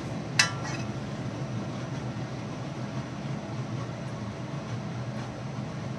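A metal spoon clinks once against the iron karahi about half a second in, followed by a steady low background hum.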